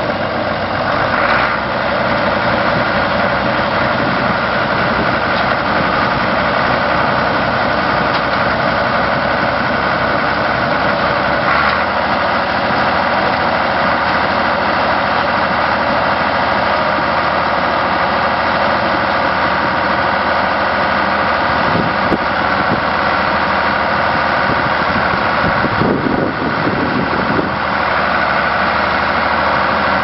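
Engine of a crawler-tracked drainage machine running steadily while it works through a field.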